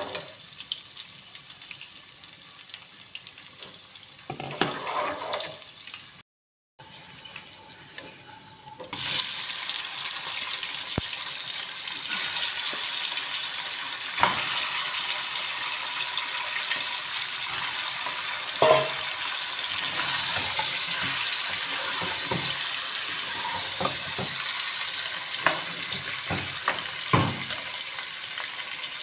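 Food frying in hot oil in a cooking pot, a steady sizzle that jumps much louder about nine seconds in. A stirring spoon knocks and scrapes against the pot now and then.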